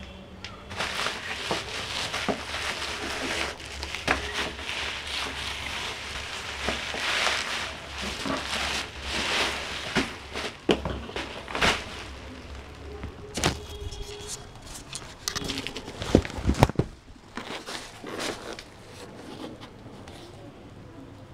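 Bubble-wrap plastic packaging crinkling and crackling as it is handled and pulled off a parcel. A few sharp, loud knocks about two thirds of the way through, as the box inside is handled, then quieter rustling.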